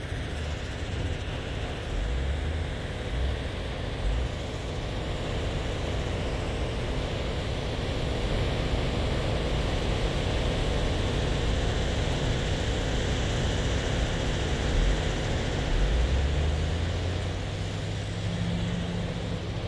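Outdoor wind rumbling on the microphone over a steady engine drone. A steadier low engine hum comes up near the end.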